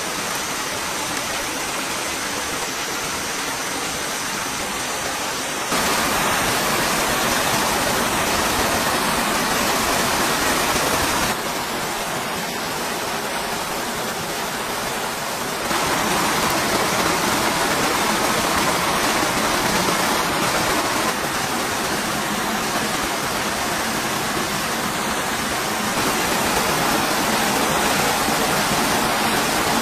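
Small waterfall pouring into a rock pool: a steady, dense rush of falling and splashing water. It gets louder and quieter in sudden steps every few seconds.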